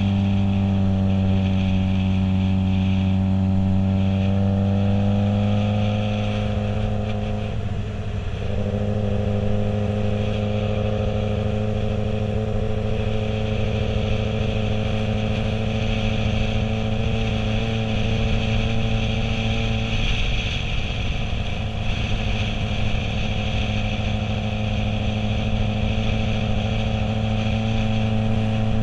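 Motorcycle engine running steadily at low road speed, heard from a helmet-mounted camera. About seven seconds in the engine note dips and quietens briefly, then picks up and holds steady again.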